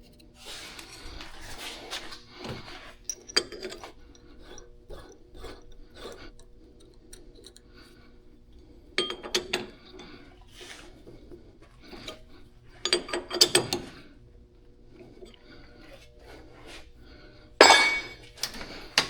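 Metal tools and parts clinking and knocking as they are handled at a lathe while a tap is set up in the chuck. Scattered small clicks are broken by short clusters of sharp, ringing metal clinks, the loudest near the end.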